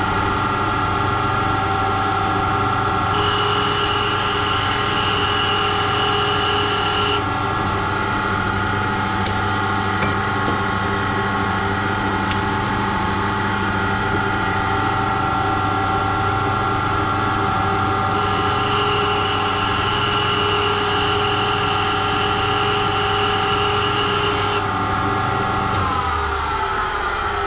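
A valve refacing machine runs steadily with a motor hum and whine while a valve face is ground. Twice a higher-pitched whine comes in for several seconds. Near the end the motor is switched off and its pitch falls as it winds down.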